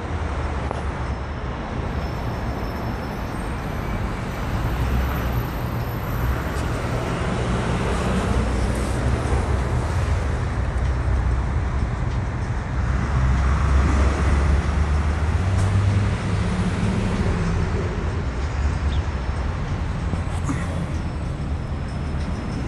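Road traffic: a steady wash of engine and tyre noise that swells as heavier vehicles pass, about five seconds in and again for a few seconds past the middle.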